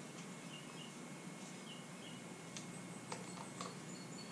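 Faint small clicks of a screwdriver turning the screws on a motorcycle front brake master cylinder's reservoir cover, over a low steady hum. A few faint high chirps come in the first half.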